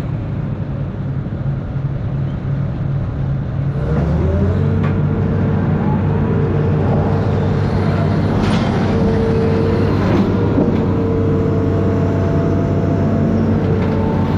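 Amphibious excavator's diesel engine running steadily, then revving up about four seconds in as the hydraulics take load, with a rising whine that settles into a steady tone and a few knocks.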